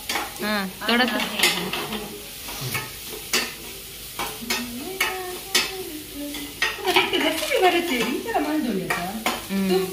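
Food sizzling in a hot pan while a metal spoon stirs it, with repeated sharp clinks and scrapes of the spoon against the pan. Voices come and go in the background.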